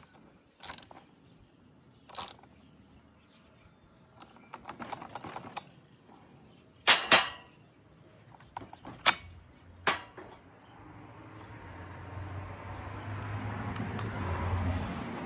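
Hand ratchet clicking through a few strokes, then sharp metallic clinks of tools being handled. Over the last few seconds a low rumble with a hum swells up.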